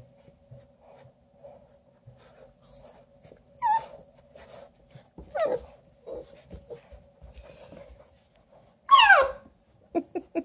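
Bluetick Coonhound puppies squabbling over a toy, giving a few short, falling whining squeals. The loudest is about nine seconds in, followed by a quick run of short yips near the end.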